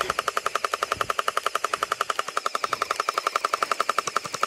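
Toy blaster firing on full auto: a steady, rapid clatter of about a dozen shots a second.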